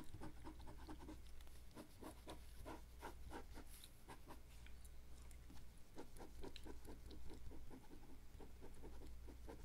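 Gum chewing close to the microphone: quick, wet mouth clicks at about three or four a second, along with a pen scratching on paper as she draws.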